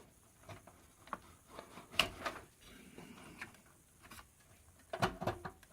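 A few light clicks and knocks of graphics cards and PC parts being handled as the cards are taken off the test machine, the sharpest click about two seconds in and a small cluster near the end.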